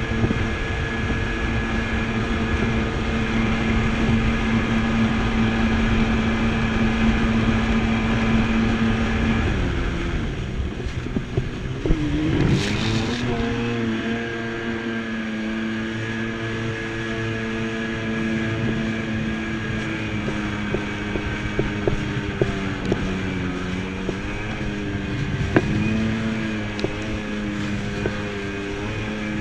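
Jet ski engine running at a steady high pitch. About ten seconds in, the throttle eases off and the pitch drops. A few seconds later it climbs back up and runs steady again, the pitch rising and falling in the later part as the craft rides over the chop.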